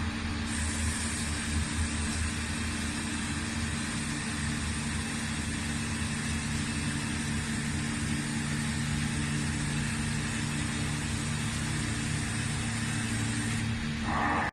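Metal lathe running: a steady motor hum with an even hiss over it that starts just after the beginning and stops shortly before the end.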